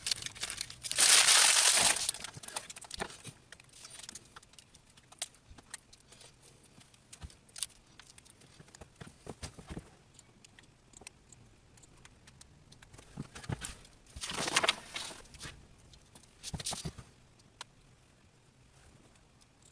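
Handling noises: a crinkling rustle about a second in and another around 14 seconds, with scattered light clicks and knocks between them.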